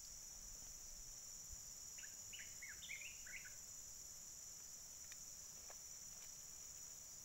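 Steady high-pitched insect chorus, like crickets trilling without pause, with a short run of bird chirps about two to three and a half seconds in.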